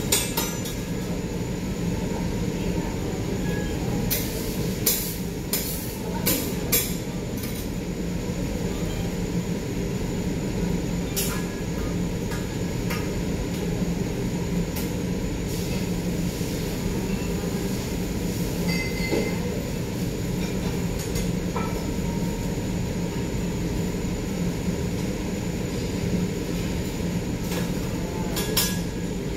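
Metal teppanyaki spatulas clicking and clinking against the steel griddle, several sharp strikes bunched about four to seven seconds in and a few more scattered later, over a steady low hum.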